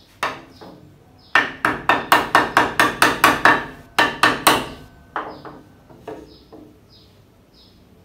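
Wooden mallet knocking on a dovetailed wooden board as the joint is driven together. A quick run of about a dozen sharp, ringing knocks, roughly four a second, starts just over a second in, and a few lighter taps follow. The joint will not go together, because one board was flipped the wrong way when it was cut.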